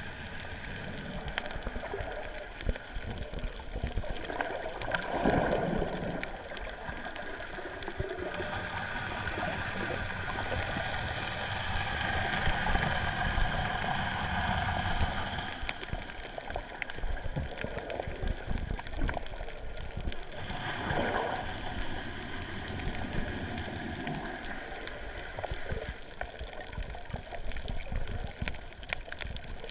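Muffled sound of water moving around an underwater action camera in its waterproof housing, a steady wash of noise with two louder swells, about five seconds in and about twenty-one seconds in.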